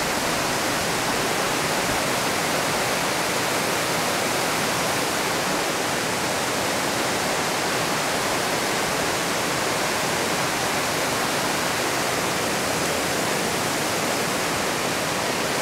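Steady rush of water pouring over an old mill dam spillway, an even, unbroken hiss-and-roar of falling water.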